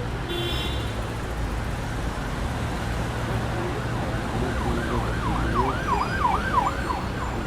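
Steady road traffic noise with a low hum; from about four and a half seconds a siren yelps, its pitch sweeping up and down about twice a second for a couple of seconds.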